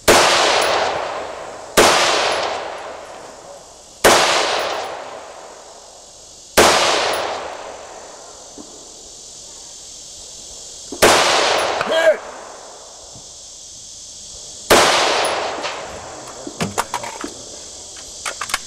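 Six slow, deliberate rifle shots, each a loud crack followed by a long echo that rolls away over about two seconds, spaced two to four seconds apart as the shooter works long-range targets. A short ring follows around the middle, and a quick scatter of small clicks comes near the end.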